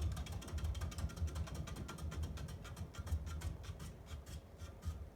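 A fast run of sharp, ratchet-like mechanical clicks over a low hum from a ceiling fan motor. The clicks thin out near the end.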